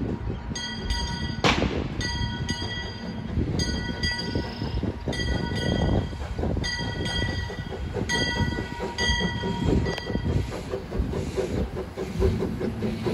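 Steam locomotive's bell rung over and over as the narrow-gauge engine pulls out, each stroke ringing on until the next, over the engine's rumbling, pulsing exhaust. A short loud burst of noise comes about a second and a half in. The bell stops about ten seconds in, leaving the rumble of the locomotive.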